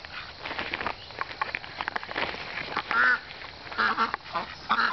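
Flock of domestic ducks quacking: soft clicks and rustling during the first half, then several short nasal quacks in the second half.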